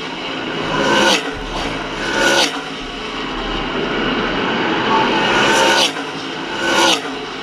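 NASCAR K&N Pro Series West stock cars passing close by, one after another, at racing speed. Each car's engine swells sharply as it goes past, and its pitch drops as it pulls away; there are four or five such passes.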